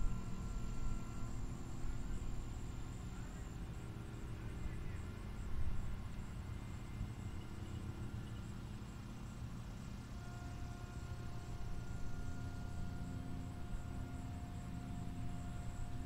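Outdoor ambience: a steady high-pitched insect buzz over a low rumble, with no siren sounding.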